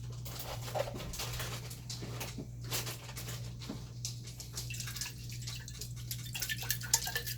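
Water and leftover vodka sauce sloshing as they are swirled around inside an open glass sauce jar, with one sharp tap near the end.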